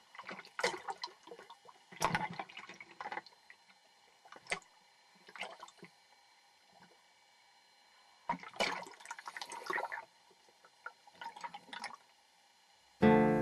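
Water splashing in several short, irregular bursts with quiet gaps between, as scuba divers jump from the side of a dive boat into the sea.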